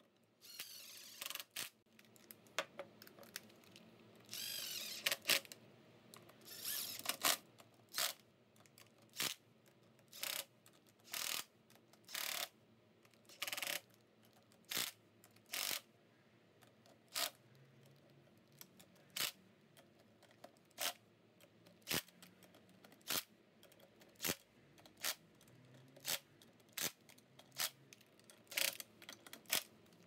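Cordless impact driver run in short trigger bursts, about one a second, snugging crankcase bolts lightly one after another, with two longer spinning runs about four and seven seconds in.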